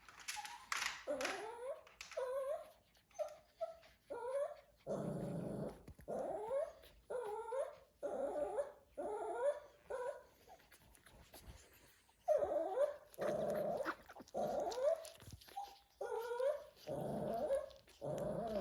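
A Shih Tzu whining over and over, a run of short pitch-bending whines coming about once a second, a few of them rougher and growly.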